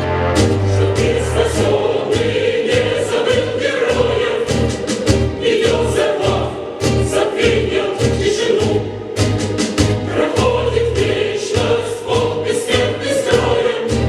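Music with a choir singing over a steady, regular beat.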